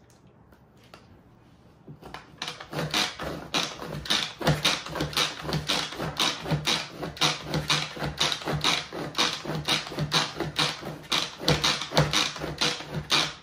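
Pampered Chef manual food processor being pumped by hand: its plunger handle is pushed down again and again, clattering in a fast, even rhythm of about two or three strokes a second as the spinning blades chop tomatoes, onion and jalapeño in the plastic bowl. The pumping starts about two seconds in.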